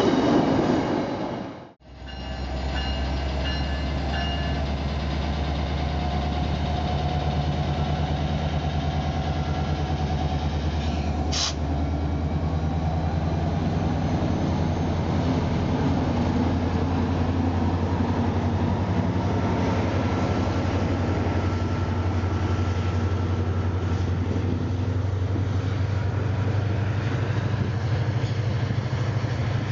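Diesel passenger locomotive engine running with a steady low drone. It begins after a sudden break about two seconds in and grows slightly stronger near the end, with one short click about eleven seconds in.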